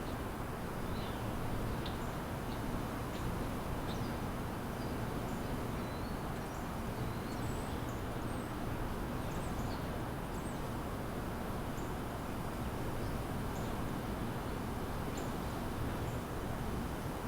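Small birds giving short, high chirps, scattered irregularly throughout, over a steady low rumble of background noise.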